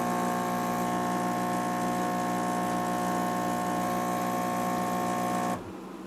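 Gaggia Brera super-automatic espresso machine's pump buzzing steadily as it forces hot water through the tamped coffee grounds to brew a shot, then cutting off suddenly about five and a half seconds in as the shot finishes.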